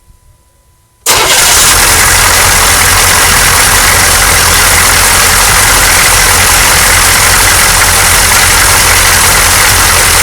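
6.2L V8 diesel engine catching about a second in and then running steadily at idle, very loud. It starts with the clear fuel line to the injection pump drained of fuel, the air-leak symptom.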